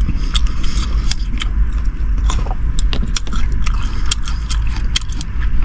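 Close-up chewing and crunching: many sharp, irregular clicks of teeth on food, over a steady low rumble.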